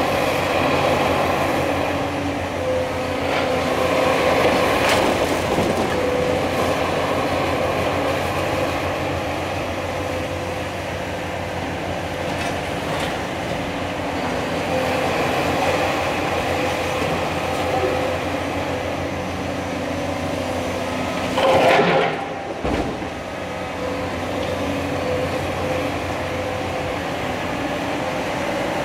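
Cat 336 Next Generation excavator's diesel engine and hydraulics running steadily while its demolition attachment breaks up the building, with scattered knocks of rubble and one louder crash about three-quarters of the way in.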